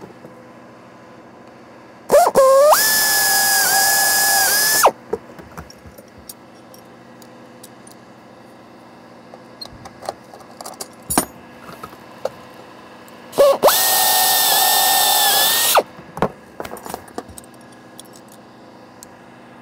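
Pneumatic air drill spinning up and drilling through the sheet-metal door sill with the bracket as a template, twice, each run about two and a half seconds with a high whine that dips briefly as the bit cuts. Small metal clicks between the runs come from Cleco fasteners being fitted with Cleco pliers.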